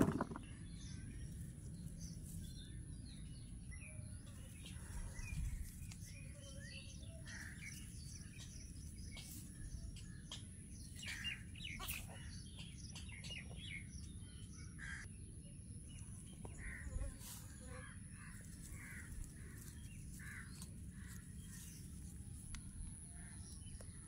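Birds chirping and calling outdoors in short, scattered calls, faint against a steady low rumble.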